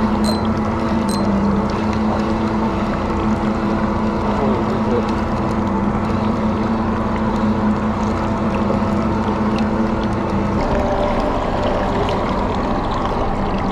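Mercury outboard engine running steadily, a constant low hum over wind and water noise; its tone changes slightly about ten seconds in.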